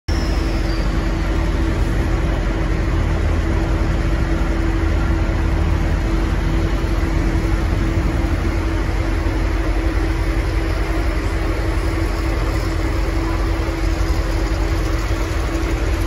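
V/Line N class diesel-electric locomotive N469, its EMD 12-645 two-stroke engine running steadily as it hauls its carriages slowly away from the platform: a low rumble with a steady hum on top.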